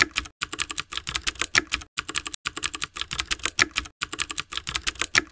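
Computer keyboard typing sound effect: a fast, uneven run of key clicks, several a second, broken by a few short pauses, keeping time with on-screen text typing out.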